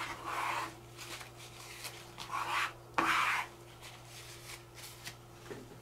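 Plastic pot scraper scraping dried acrylic paint off a wet palette's mixing surface, in three short rasping strokes, the last starting with a sharp click.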